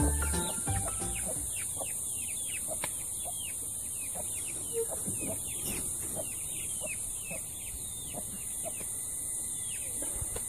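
Chicken chicks peeping over and over, short falling peeps at about two to three a second, over a steady high insect drone.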